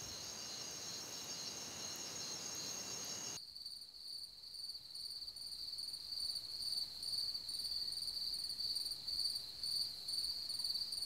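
A steady chorus of night insects trilling high; about three seconds in it switches abruptly to a different, pulsing high trill.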